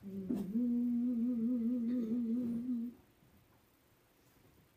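A man humming one held note, sliding up into it and holding it with a slight vibrato for about three seconds: the song leader giving the starting pitch for an a cappella hymn.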